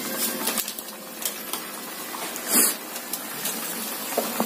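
Chicken simmering in broth in a wok on a gas stove, a steady low hiss, with short crinkles and taps as a seasoning sachet is shaken over the pot; one louder rustle about two and a half seconds in.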